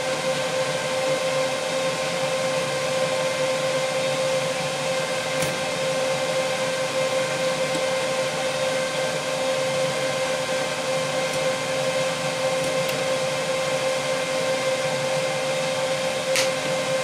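K40 laser engraver running with its fans, a steady whirring hum with a clear whine. Near the end a switch clicks as the power is cut, and the whine starts to wind down.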